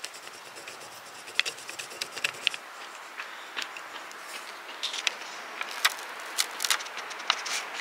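A wooden craft stick scratching and rubbing a rub-on decor transfer onto a painted pot in short scratchy strokes, with the transfer's backing sheet being peeled away near the end.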